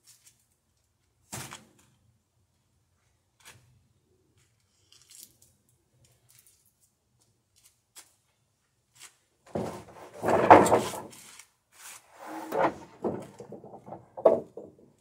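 Wooden boards scraping and knocking against each other as a long plank is dragged off a stacked lumber pile. A few faint clicks come first; the scraping starts about two-thirds of the way in and is loudest just after.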